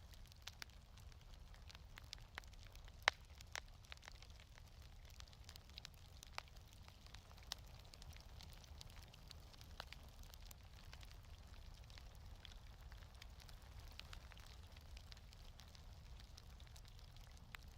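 Fireplace wood fire crackling: sparse, sharp pops and snaps over a low, steady rumble, the loudest pop about three seconds in.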